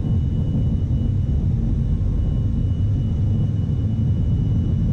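Steady low rumble heard in a KC-135 cockpit during the takeoff roll, the engines at takeoff power, with a thin steady high tone over it.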